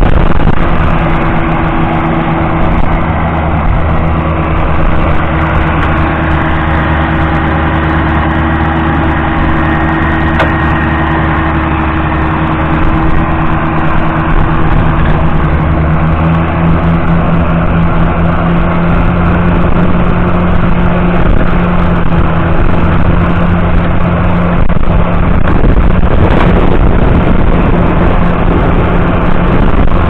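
John Deere 7710's 8.1-litre six-cylinder diesel engine running steadily under load as the tractor draws a reversible deep plough through the soil.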